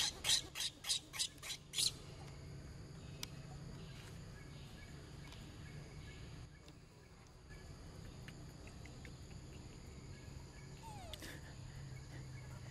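Baby macaque screaming in a rapid series of short, harsh cries, about three a second, that stop about two seconds in. After that only a low steady background hum remains, with a short falling call near the end.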